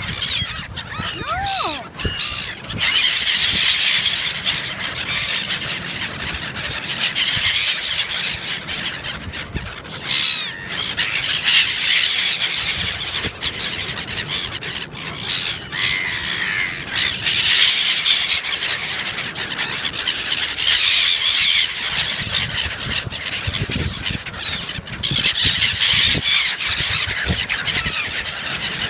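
A flock of seagulls calling, many high squealing cries overlapping, swelling and fading in waves every few seconds.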